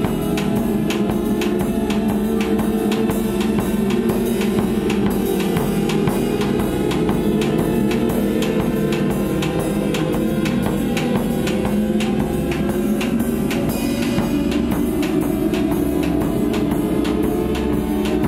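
Drum kit played live in a steady, even beat, with bass drum, snare and cymbal hits, over a sustained low drone.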